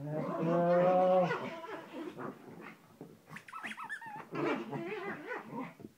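Small dogs play-fighting: a sustained growl for about the first second, then high whines and yips mixed with shorter growls.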